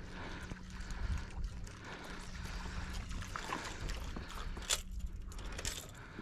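Sounds aboard a small fishing boat on the water: a steady low hum under a noisy wash and rumble, with one sharp knock about three-quarters of the way through.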